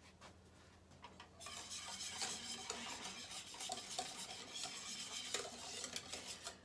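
A utensil stirring a thick chocolate custard mixture in a saucepan, scraping against the pan in quick continuous strokes that start about a second and a half in.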